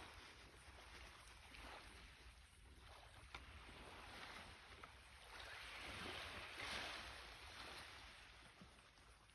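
Faint sea surf: waves washing on the shore, with one wash swelling about six seconds in and then fading.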